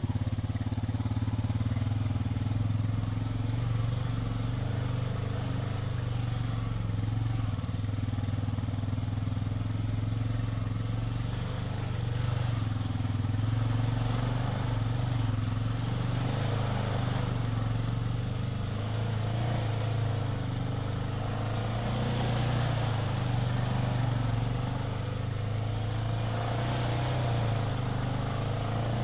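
Side-by-side UTV's engine running at a steady, even pace as it drives along a rough dirt trail, heard from inside the cab.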